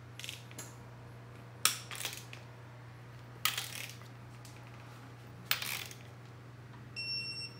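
Wrench and socket on the main cap bolts of a Duramax engine block: three sharp metal clacks, each followed by a short rattle. Near the end an electronic torque wrench starts beeping.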